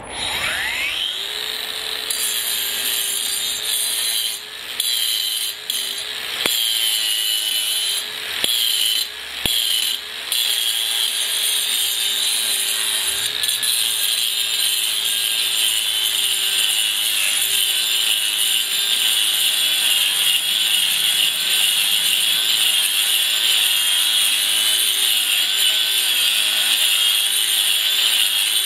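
Cordless 18 V brushless angle grinder spinning up, then grinding concrete with a diamond wheel, its whine wavering in pitch under load. It lifts off a few times in the first ten seconds, then grinds steadily.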